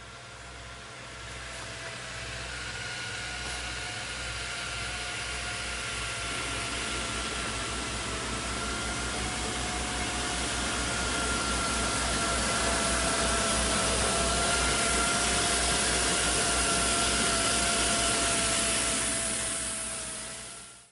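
Road-striping paint truck running as it approaches, its engine and a steady whine growing steadily louder, then fading out near the end.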